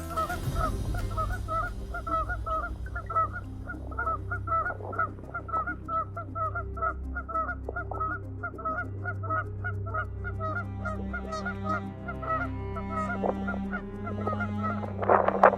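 A flock of geese honking over and over, about two calls a second, with a louder burst of honking near the end.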